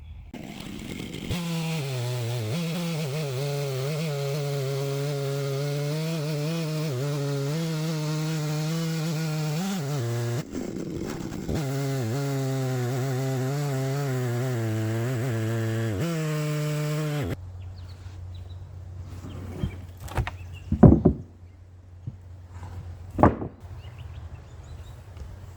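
Stihl 660 two-stroke chainsaw in an Alaskan chainsaw mill, running steadily at high revs under load as it rips lengthwise through an ash log, with a brief dip about ten seconds in. It stops about seventeen seconds in, leaving a low steady hum and a few sharp knocks.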